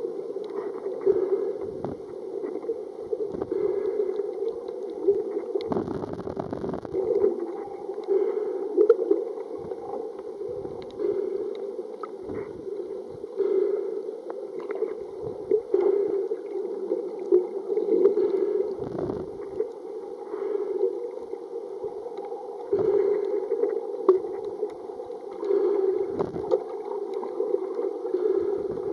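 Muffled underwater sound picked up by a camera in a waterproof housing: water sloshing and gurgling around it in irregular swells every second or two, with a few dull bumps.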